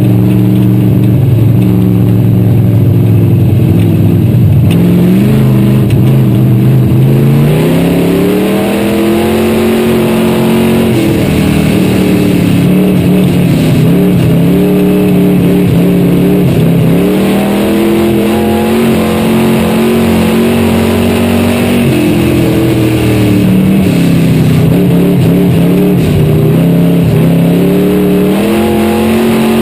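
Dirt-track stock car's engine heard from inside the cockpit, held low and steady at first, then climbing in pitch and repeatedly rising and falling as the car accelerates down the straights and lifts off for the turns.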